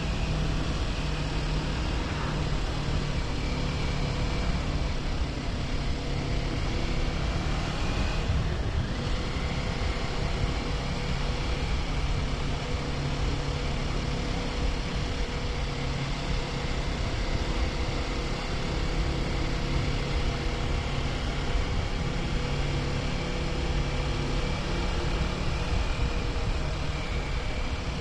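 Kawasaki Ninja 400's parallel-twin engine running steadily while riding, under an even rush of wind and road noise. The engine note changes about eight seconds in.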